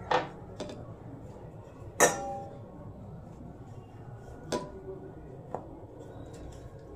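Rolling pin knocking against the rolling surface while stuffed paratha dough is rolled out: five short, sharp knocks with a slight ring, the loudest about two seconds in.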